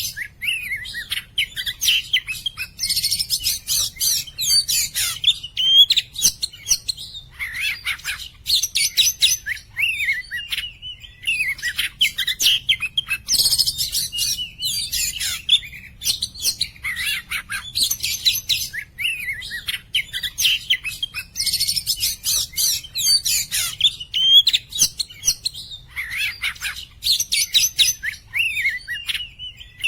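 Oriental magpie-robins (kacer) singing: a rapid, varied song of clear whistles and chattering phrases, one burst after another, with a brief lull about ten seconds in.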